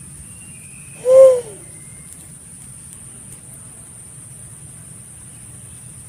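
Pink-headed fruit dove giving one short, deep hoot about a second in; the pitch arches slightly and slides down at the end. A steady high hiss runs underneath.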